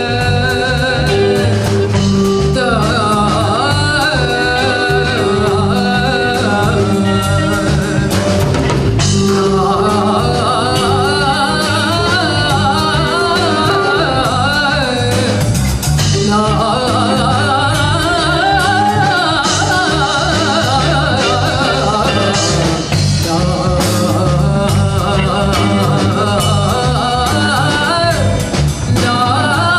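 A woman singing lead with a live band, sung in phrases with short breaks between them, over electric bass guitar and a steady beat.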